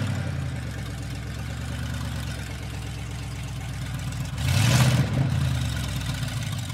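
Ford F-150 pickup's engine running just after being started, with one brief rev about four and a half seconds in as the driver gives it gas to drive the stuck truck out in two-wheel drive.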